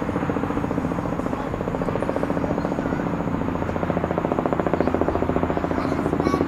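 Antonov An-70's four Progress D-27 propfan engines with contra-rotating propellers running at taxi power, a steady drone with a fast, even throbbing beat that grows slightly louder as the aircraft turns toward the microphone.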